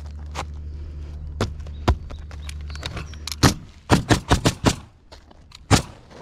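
Nails being driven into plywood roof sheathing: sharp single shots spaced about a second apart, then a quick run of about six in under a second a little past halfway, and one more near the end. A steady low hum runs beneath and cuts off about three and a half seconds in.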